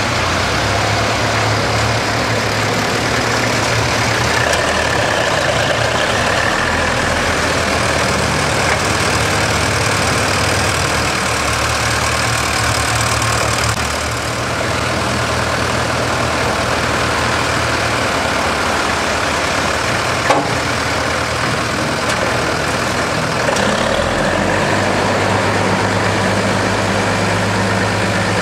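Classic farm tractor engines, a Minneapolis-Moline among them, running steadily at low revs, with a single brief click about two-thirds of the way through.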